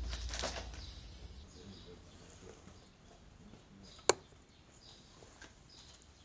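A single sharp knock about four seconds in, over faint scattered ticking; a low rumble fades out in the first second or so.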